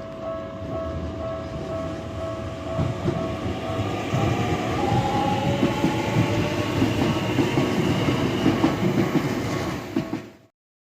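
Japanese railway level-crossing alarm ringing with its steady repeating tone while a Tokyu Ikegami Line train passes, its wheels clacking over the rail joints. The train gets louder about three seconds in, and the sound cuts off suddenly near the end.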